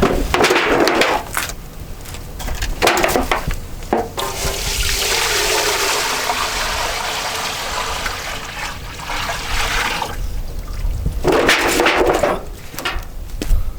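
Water rushing or pouring steadily for about six seconds, with a few knocks before and after it.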